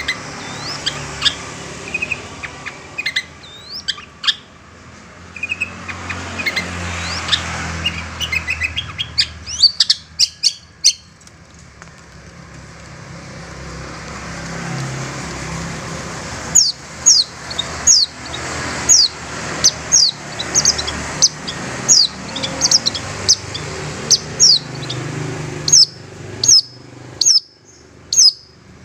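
Long-tailed shrike (cendet) calling: a varied run of chirps and quick notes for the first half, then a long series of sharp, high, downward-slurred calls about two a second. This is the harsh call that lures wild shrikes.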